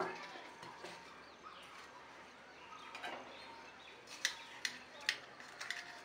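Faint light clinks of a steel spoon against a small steel cup of salt, a handful of sharp ticks mostly in the second half.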